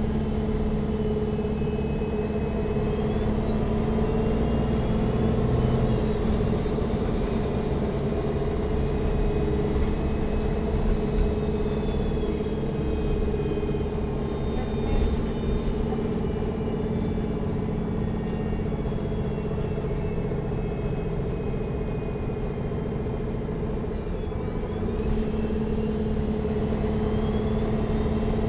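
Neoplan N4516 Centroliner Evolution city bus heard from on board: the engine runs with a steady hum. A high whine climbs over a few seconds, slowly falls away, and rises again briefly near the end.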